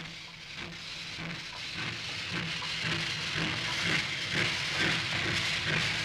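JNR Class D51 steam locomotive hissing steam, with an even rhythm of exhaust chuffs about two or three a second, growing gradually louder. Steam is jetting out beside the cylinders.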